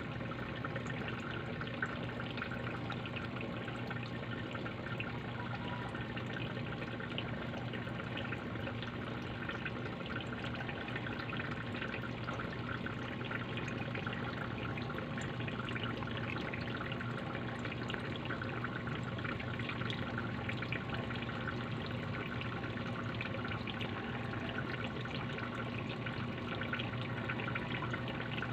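Aquarium water trickling and dripping steadily, with a low steady hum underneath.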